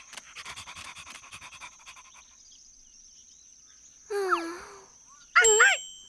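A small puppy panting quickly for about two seconds, then giving short pitched yelps about four seconds in and again near the end.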